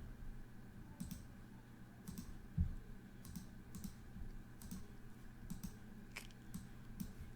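Computer keyboard and mouse in use: irregular, scattered key and button clicks, with a duller knock about two and a half seconds in.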